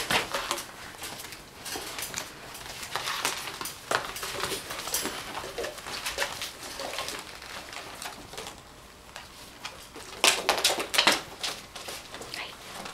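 Labradoodle puppies playing with paper, an irregular run of rustling, crinkling and light clicks, busiest about ten seconds in.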